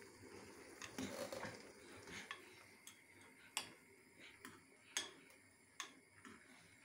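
A utensil clicking against a small pot while instant noodles are stirred: a few sharp, irregularly spaced taps, quiet overall.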